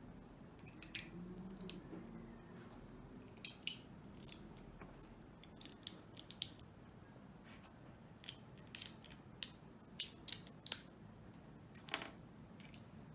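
Plastic LEGO bricks clicking and tapping as they are handled and pressed onto a flat plate: many small, sharp clicks at an irregular pace, coming more often in the second half.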